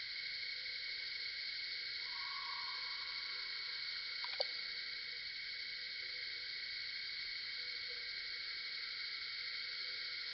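Steady, many-layered high-pitched drone of a forest insect chorus. A lower call near 1 kHz joins briefly about two seconds in, and there is a single sharp click a little before the middle.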